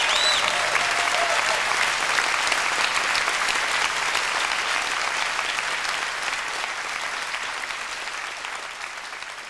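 Large theatre audience applauding, with a few cheers and whistles in the first second or so. The applause slowly fades out toward the end.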